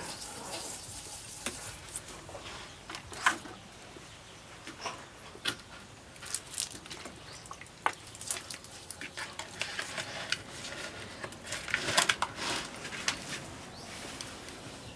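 Hands rubbing seasoning into a raw whole fish in a plastic basin: irregular clicks, slaps and scrapes of fingers on the fish and the bowl, loudest a few seconds in and again near the end.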